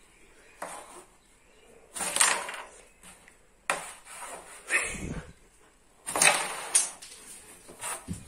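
Carrom striker flicked across the wooden carrom board, clacking into the wooden coins and sliding over the powdered surface: a series of sharp wooden clacks and short slides, the loudest about two seconds in and about six seconds in.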